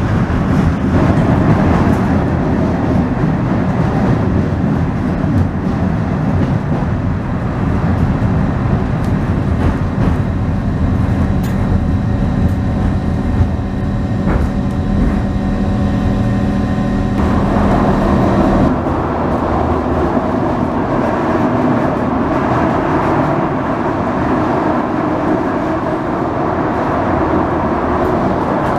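Underground cable-hauled funicular car running on its rails through a tunnel: a steady, loud rumble. A steady hum runs through the middle and stops a little past halfway, after which the rumble carries on.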